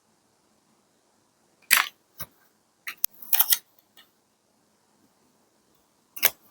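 Sharp clicks and short crackly taps of paper-craft materials being handled on a journaling page: one about two seconds in, a quick cluster a second later, and one more near the end.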